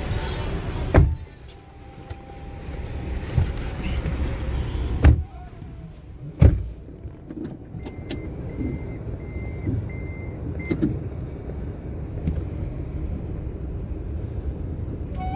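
Car doors shutting with a thud three times over the low rumble of a stopped car, followed by a short run of evenly spaced beeps.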